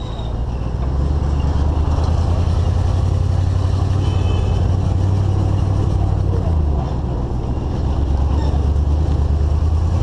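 GMC Suburban driving along a dirt road towing a loaded trailer: a steady low rumble of engine, tyres and road, heard from the vehicle's rear window. It swells about a second in, eases briefly around seven seconds, then picks up again.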